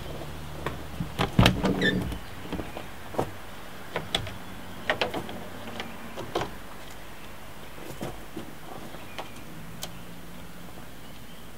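Sharp plastic clicks and snaps as a Jeep Cherokee XJ's roof drip-rail trim is pushed up off the gutter rail, with the loudest cluster about one to two seconds in and scattered single clicks after.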